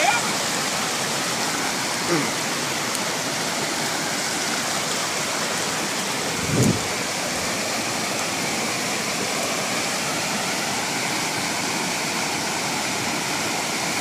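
Small waterfall rushing steadily over rocks into a stream. A brief louder sound comes a little past halfway.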